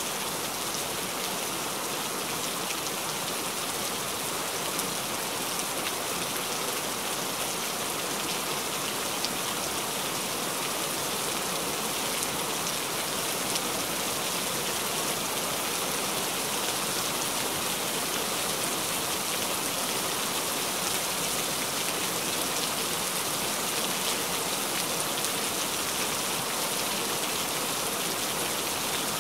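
Steady rain falling: an even hiss with scattered light drop ticks.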